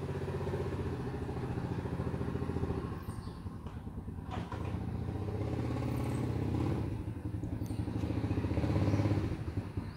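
An engine running steadily, with an even pulsing beat, growing louder to a peak about nine seconds in and then easing off.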